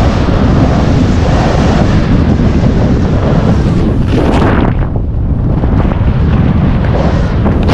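Heavy wind buffeting a camera microphone during a fast descent through deep powder snow. About four seconds in, a louder hiss of snow spraying up in a turn.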